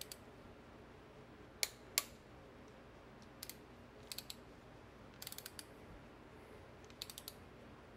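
Click-type torque wrench tightening intake manifold bolts on a Chevy 350 small-block. Two sharp clicks come close together about a second and a half in, then short runs of faint ratchet ticks as the handle is worked back and forth.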